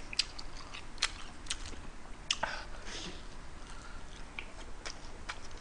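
Close-up chewing of a tuna-mayo triangle gimbap (seaweed-wrapped rice ball), with scattered soft mouth clicks and smacks.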